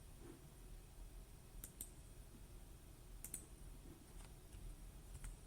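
Near silence broken by a few faint computer clicks, some in quick pairs, from someone working a computer's mouse and keys.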